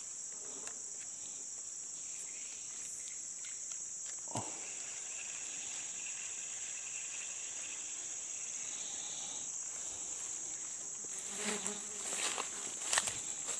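Steady high-pitched drone of insects, such as crickets or cicadas. From about eleven seconds in, rustling and footsteps through low undergrowth join it.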